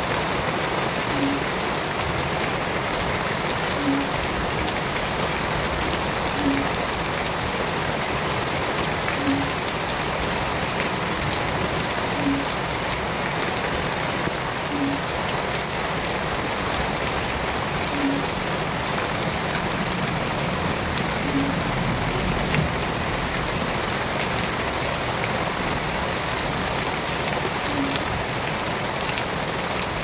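Shallow stream running over gravel, a steady rush of water with fine splashing. A short low blip recurs about every two to three seconds.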